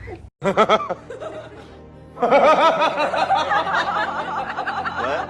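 Rapid, high-pitched laughing, a cartoon-style giggle, starting about two seconds in and carrying on, layered over music; a short warbling sound comes just before it.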